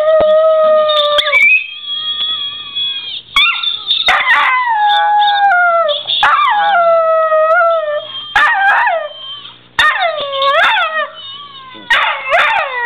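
Dog howling along to another dog's singing played from a video: a run of long, wavering howls that glide up and down in pitch, with short breaks between them.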